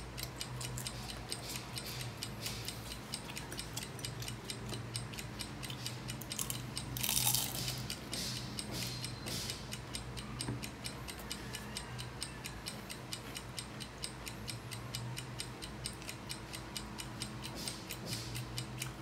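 Fast, even ticking of a countdown clock, over a steady low hum. A brief louder noise comes about seven seconds in.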